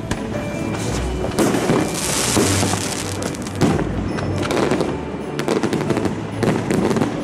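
Fireworks going off in quick succession: many sharp cracks and pops, with a few louder bangs, as shots rise and burst.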